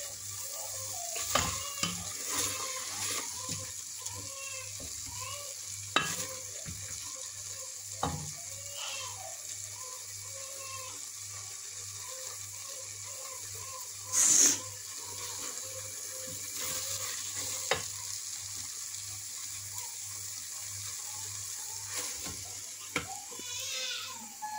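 A wooden spoon stirring and scraping thick spinach in an aluminium pot, with the food sizzling steadily over a gas flame. Now and then the spoon knocks against the pot, with one louder scrape a little past halfway.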